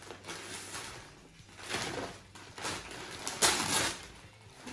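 Gift packaging rustling and crinkling as it is opened, in about four short bursts, the loudest near the end.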